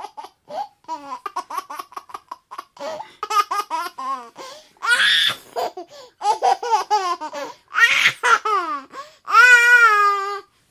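A baby laughing in quick runs of short giggles and belly laughs. Near the end the laughter becomes one long, high squeal.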